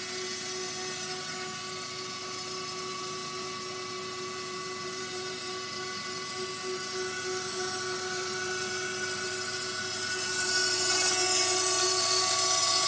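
Hobby CNC router running: a steady high-pitched whine made of several held tones over a hiss, growing louder and brighter about ten seconds in.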